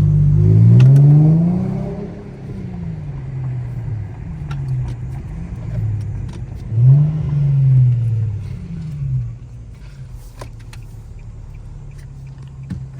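Infiniti G35's V6 exhaust with the resonator deleted, under acceleration: the engine note climbs and drops back several times, loudest in the first two seconds and again about seven seconds in, then settles to a steady low drone.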